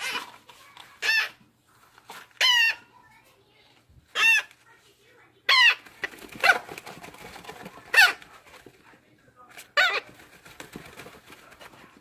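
A 25-day-old African grey parrot chick giving food-begging calls while being hand-fed: about eight short, loud, raspy squawks, each a fraction of a second long, repeated every second or two.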